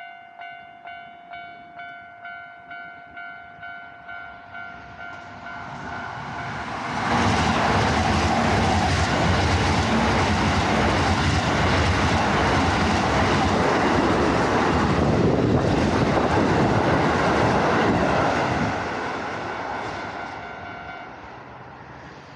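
Japanese railway level-crossing alarm ringing a steady electronic ding about twice a second while a Keisei Line electric train approaches and passes the crossing. The train's rush builds to a loud pass with wheels clattering over the rail joints, then fades, and the crossing alarm stops near the end.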